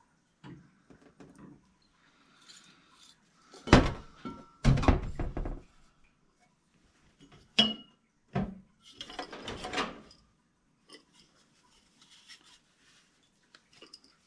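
Copper pipe, fittings and hand tools being handled and knocked together: a few sharp metallic knocks, a short ringing clink past the middle, then a brief rattle.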